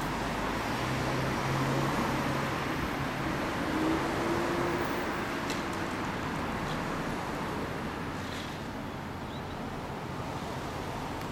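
Steady motor-vehicle engine noise, with a low hum throughout and a brief rising tone about four seconds in.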